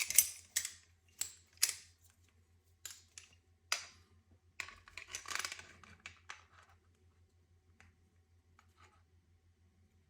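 Sharp clicks, taps and light scrapes of a fuel injector, fuel rail and hand tool being handled as the injector is worked into the rail. They come as a dozen or so separate clicks and die away after about seven seconds.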